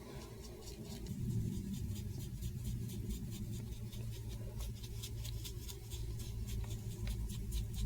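Paintbrush stroking gouache onto paper, a quick run of light scratchy strokes, over a low steady hum.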